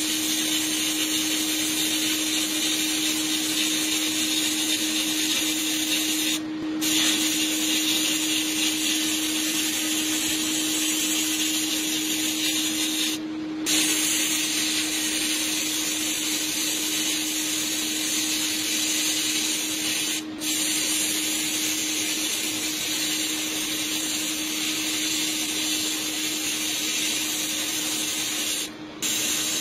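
Sandblasting gun in a blast cabinet hissing steadily as it strips rust off a steel part, over a steady low hum. The blast breaks off briefly four times, about every seven seconds.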